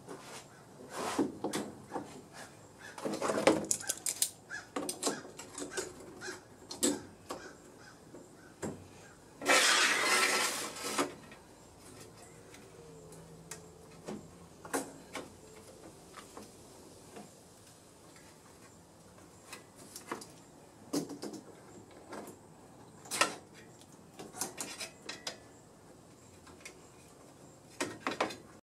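Clinks, taps and knocks of a steel bandsaw blade, clamps and metal tools being handled and set on a wooden workbench. About ten seconds in comes one louder rasping scrape lasting a second or two.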